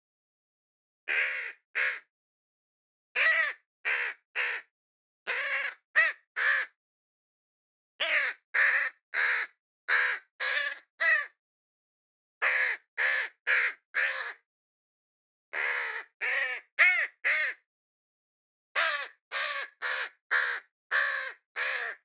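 Crow cawing: short calls come in series of two to five, with a second or so of silence between the series.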